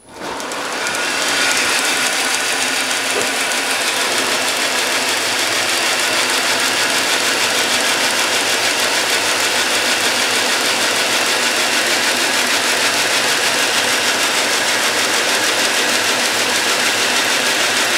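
Homemade 2x72 belt grinder started up: the electric motor and abrasive belt come up to speed over the first second or so, then run with a steady whir, below full speed.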